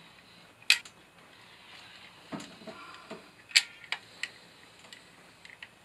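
Caulking gun clicking as construction adhesive is squeezed out in spots: about five short, sharp clicks of the trigger, irregularly spaced.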